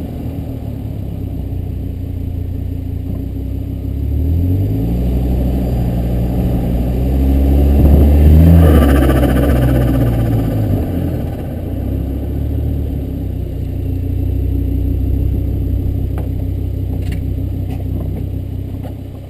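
Volvo S60R's turbocharged five-cylinder engine pulls up through the revs. About nine seconds in, as the throttle closes, there is a loud burst of turbo flutter (compressor surge), and the revs then drop back. The flutter happens because the diverter valve line has popped off, so the excess boost is not vented and instead pushes back through the turbo's compressor.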